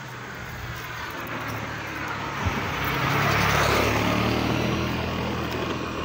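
A motor vehicle passing close by on the road, its engine and tyre noise getting louder to a peak just past the middle and then fading away. A short thump about two and a half seconds in.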